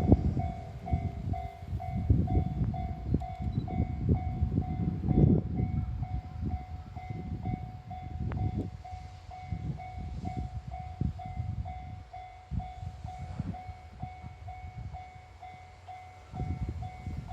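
C57 steam locomotive working slowly, with uneven low exhaust chuffs, over which a high ringing squeal repeats about twice a second. This is the abnormal noise of the fault that later left the engine unable to climb the grade.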